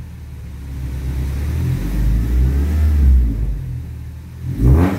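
Suzuki Swift engine, fitted with a full aftermarket exhaust system, revved while parked: the revs swell over about three seconds and fall back, then a short sharp blip near the end. An iForce throttle controller is plugged in, and the engine picks up revs quickly and lightly on a light press of the pedal.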